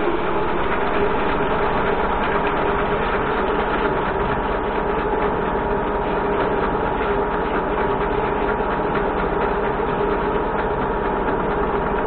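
Metal lathe turning a workpiece under a cut, throwing off swarf: a steady mechanical whir of motor and gearing with a couple of steady tones over it, even throughout.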